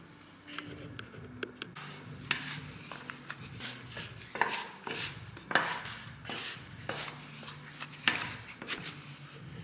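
Kitchen utensils knocking and scraping against a bowl or dish: a run of irregular taps and clinks, with a few louder knocks in the second half.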